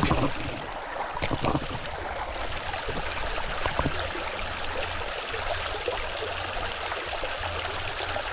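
Creek water running and trickling steadily, with a few brief knocks.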